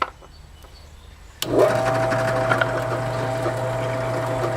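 Drill press switched on about a second and a half in: a click, then the motor spins up and runs with a steady hum.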